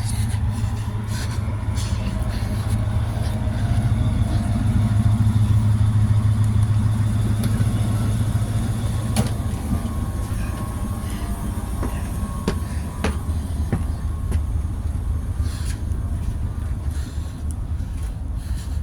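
Train running with a steady low rumble, swelling about four seconds in, with a few sharp clicks and knocks later on.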